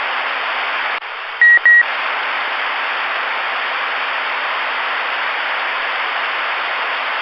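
Steady receiver static hiss from a Stryker SR-447HPC ten-meter radio's speaker. About a second in, an incoming carrier briefly quiets the hiss and two short high beeps sound as the other station unkeys, then the static returns.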